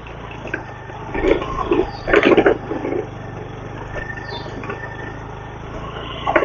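Motorcycle engine running steadily as the bike rides along, with a few louder short irregular sounds about one to three seconds in.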